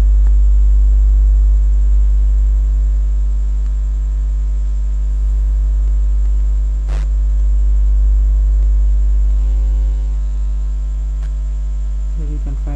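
Steady electrical mains hum with its overtones, loud in the recording, with a single click about seven seconds in.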